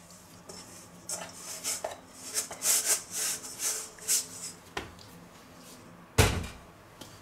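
Hand scraping pizza dough around the inside of a stainless-steel mixing bowl: a run of short, dry rasping strokes. A single heavy thump follows about six seconds in.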